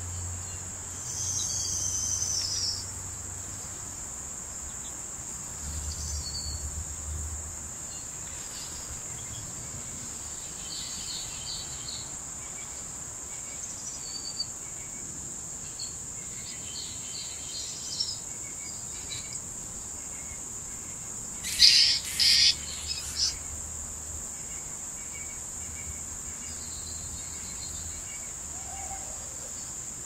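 Steady high-pitched chorus of insects, with scattered small-bird chirps and a loud quick run of bird calls about two-thirds of the way in.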